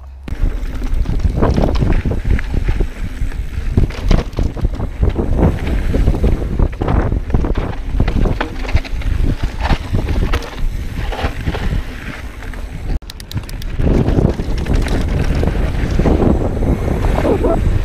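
Wind buffeting the camera's microphone as a full-suspension 29er mountain bike rides a dirt trail, with many knocks and rattles from the bike over bumps. It drops out briefly about 13 seconds in, then goes on.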